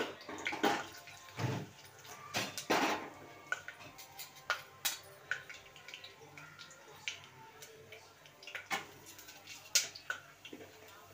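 A metal spoon clinking and tapping against the small steel cups of a spice box, with scattered light knocks of steel kitchenware, a few louder ones in the first three seconds.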